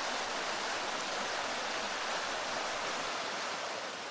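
Mountain stream rushing over rocks: a steady rush of water that begins to fade near the end.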